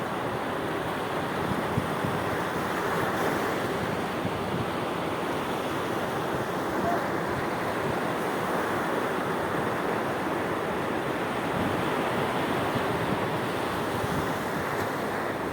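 Sea waves washing in steadily, a continuous surf sound with gentle swells, with some wind on the microphone.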